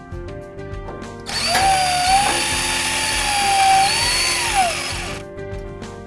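Cordless drill running at the head of a metal door frame while a door closer's parallel arm bracket is fastened. It starts about a second in and runs for about four seconds: the motor whine rises at the start, holds steady, climbs once more and falls away as it stops. Background music plays throughout.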